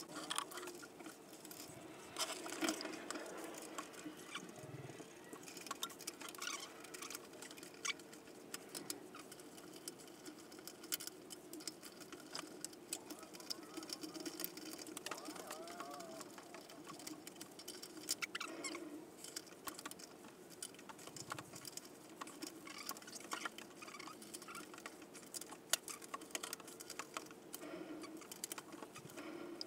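Faint, scattered clicks, taps and scraping of hand work on a tractor's front wheel hub, with tools and parts handled against the metal, over a steady low hum.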